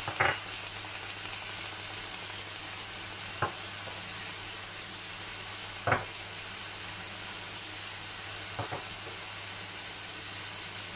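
Diced chicken with onion and garlic sizzling in oil in a frying pan, a steady hiss, with four short knocks spread through it as spices go in.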